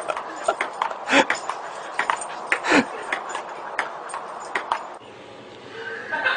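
Table-tennis ball clicking against the table and paddle in an irregular rally, a sharp click about every half second; the clicking stops about five seconds in.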